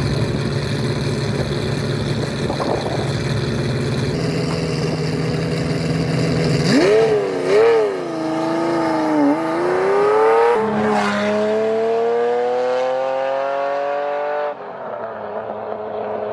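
Ferrari Testarossa's flat-12 engine: a steady note at first, then revving with the pitch wavering up and down about seven seconds in, then pulling away with the pitch rising steadily through a gear. The engine sound drops off suddenly near the end.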